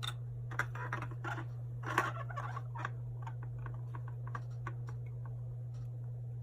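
Light clicks and taps of plastic HO-scale kit wall pieces being handled and fitted together, thickest in the first three seconds and sparse after, over a steady low hum.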